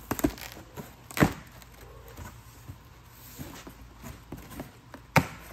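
Cardboard shipping box being opened by hand: rustling and scraping of the taped top and flaps, with several sharp cardboard knocks. The loudest knock comes about a second in, and another strong one near the end.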